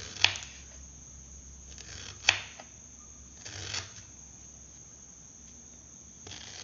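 Knife slicing fresh ginger thinly: two sharp knocks about two seconds apart, with a few softer cuts between and after.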